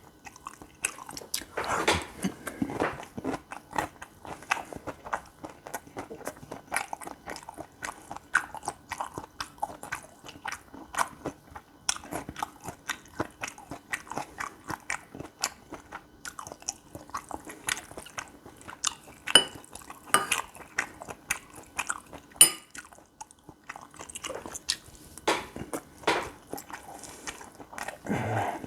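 Close-miked chewing and biting of gopchang fried rice, with many short, irregular clicky mouth sounds and a few louder bites.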